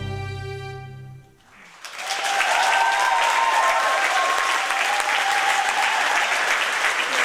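The big band's last held chord fades out, then audience applause breaks out about two seconds in and keeps going.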